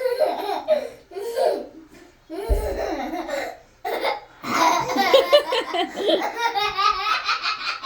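A girl laughing in short bursts, with burps breaking into the laughter. From about halfway through, the laughter runs together in a long stretch of quick pulses.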